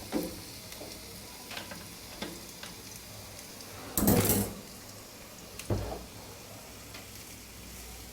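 Paneer tikka skewers being laid on a preheated, oiled grill tawa: light clinks and knocks, with a short burst of sizzling about four seconds in and a faint steady hiss.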